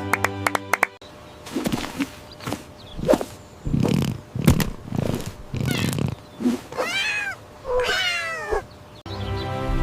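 Cat vocalising: a string of short mews and chirps, then two longer meows near the end whose pitch rises and falls.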